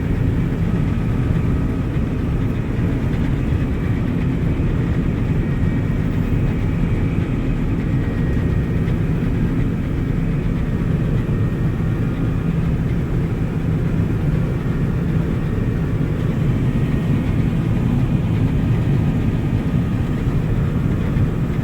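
John Deere 9750 STS combine's six-cylinder diesel and threshing machinery running steadily while harvesting wheat: a constant low drone with a faint steady whine above it.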